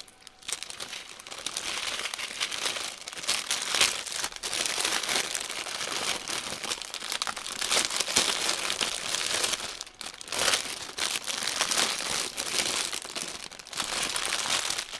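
A clear plastic bag crinkling and rustling as hands rummage through it and handle the small packets of diamond painting drills inside. It starts about half a second in and dips briefly around ten seconds in.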